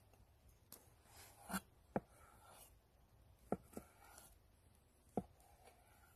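Large kitchen knife cutting raw chicken breast into chunks on a wooden cutting board. The blade knocks sharply on the board about four times, irregularly spaced, with softer slicing sounds through the meat between the knocks.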